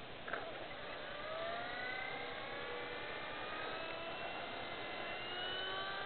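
Blade mCP X micro RC helicopter spooling up on the ground: its electric motor and rotor make a whine of several tones that rises in pitch, quickly at first and then more slowly, as the rotor speeds up under added power.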